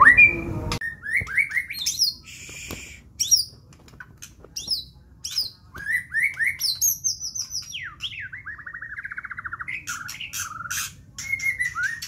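White-rumped shama (murai batu) singing a varied song of short rising whistles and harsh, sharp notes, with a fast trill about eight seconds in.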